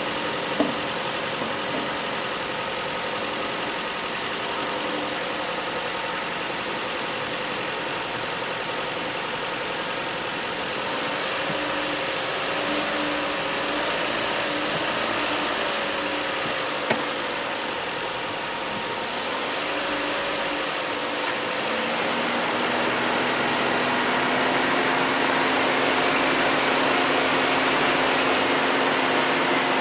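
2002 Mazda Protege 5's engine idling steadily. A faint wavering whine comes and goes in the middle. From about two-thirds of the way through the engine note gets a little louder and a new steady tone joins it.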